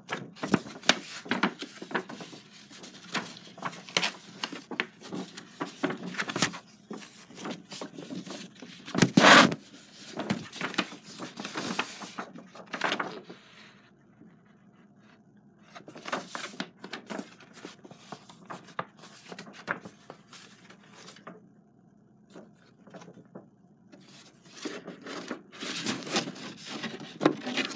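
Irregular scraping, rubbing and knocking of things being handled close to the microphone, with a louder knock about a third of the way in and a few quieter stretches.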